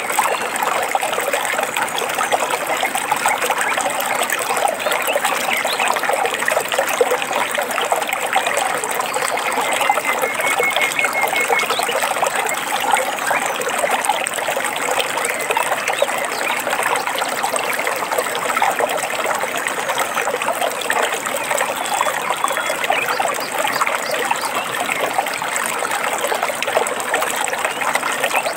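Stream water trickling and splashing steadily. A faint short bird trill comes through about ten seconds in.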